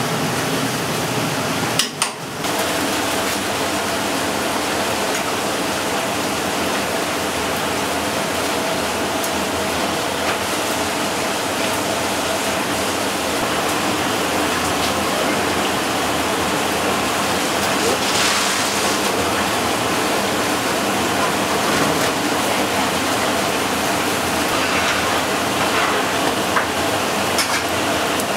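Steady sizzling hiss of skewered eel fillets grilling over hot charcoal, with a low steady hum underneath and a few light clicks of metal skewers being handled near the end.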